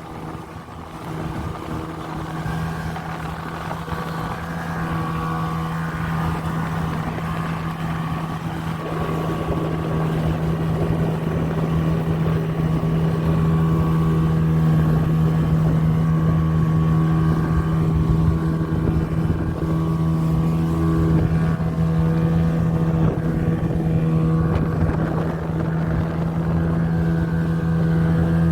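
Speedboat engine running steadily, growing louder over the first ten seconds or so and then holding at an even level.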